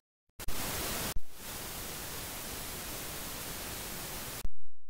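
A burst of static-like hiss, a few seconds long, that starts and stops abruptly and is louder for its first half second or so: an electronic noise fault in the sermon audio, such as wireless-microphone or recording static.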